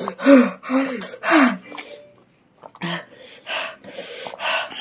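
A person's short vocal gasps in the first second and a half, then after a brief pause quick heavy breaths through the mouth, about two to three a second: a mouth burning from an extremely hot chili chip.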